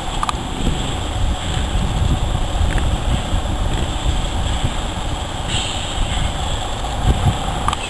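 Small steam locomotive moving slowly along the track, with a steady low rumble.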